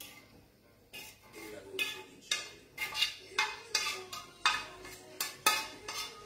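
A utensil knocking and scraping against a frying pan as pasta is pushed out onto a plate. It starts about a second in and goes on as about a dozen sharp clinks, roughly two a second, some leaving a brief metallic ring.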